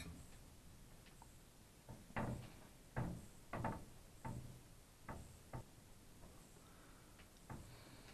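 Irregular small knocks and taps, about eight of them, from hands handling the opened plastic radio, its wires and a soldering iron on a workbench while a wire is soldered to the circuit board.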